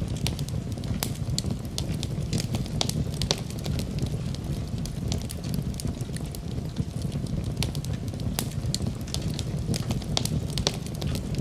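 Wood fire in a fireplace crackling, with frequent sharp irregular pops and snaps over a steady low rumble.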